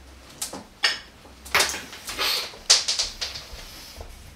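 A handful of sharp knocks and clatters, about five in the first three seconds.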